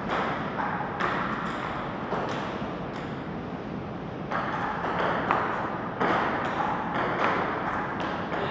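Table tennis ball clicking against paddles and the table during a rally, a quick run of sharp ticks every few tenths of a second. There is a short break about halfway before the ticks start again.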